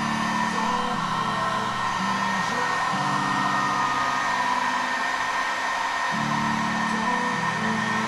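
Electric heat gun blowing steadily, a hiss with a constant high whine, used to force-dry freshly sprayed car paint. Music with slowly changing low notes plays alongside.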